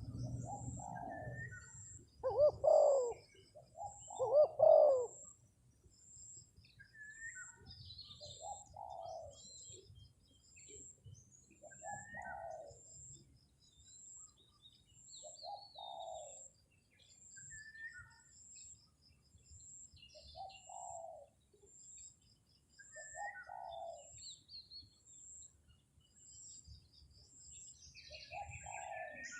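Spotted dove cooing: a series of short cooing phrases every two to three seconds, the two loudest about two and four seconds in. Small birds chirp faintly, and a fast, even high-pitched pulsing runs underneath.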